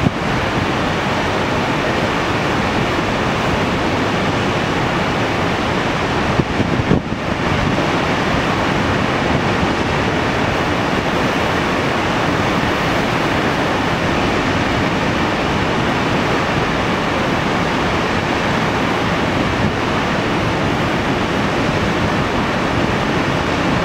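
Floodwater pouring over a low dam spillway and churning below it during the spring ice break-up: a loud, steady rush of water.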